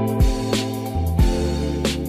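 Background music with a steady drum beat over sustained bass notes.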